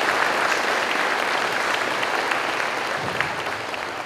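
Audience applauding to welcome a speaker, the clapping gradually fading.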